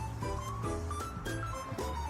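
Background music with a steady bass line and sustained melodic notes.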